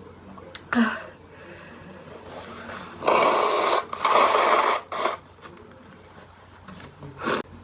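A woman's sneezing and nose sounds: a short sharp burst about a second in, then two long, forceful, breathy bursts close together around three and four seconds in, a smaller one just after, and another short burst near the end.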